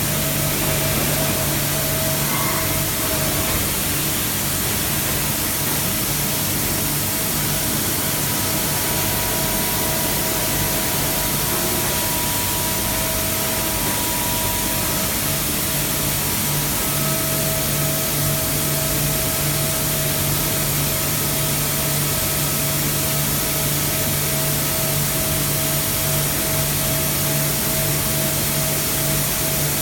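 Mazak 5-axis CNC machining center running a cut: a steady hiss with several steady whining tones that fade in and out over time.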